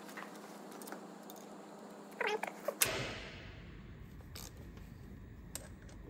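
A short pitched animal call that rises and falls, about two seconds in, followed by a sharp click; faint scattered ticks around it.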